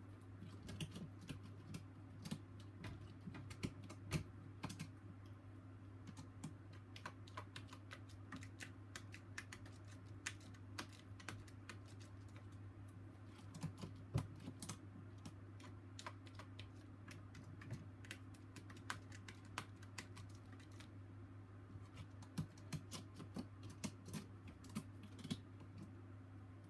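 Irregular light clicks and taps, some in quick clusters, over a low steady hum.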